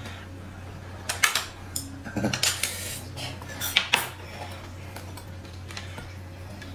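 Tableware clinking and knocking at a meal: chopsticks against bowls and a glass set on the table, a handful of sharp taps and short clatters in the first four seconds, then quieter. A steady low hum runs underneath.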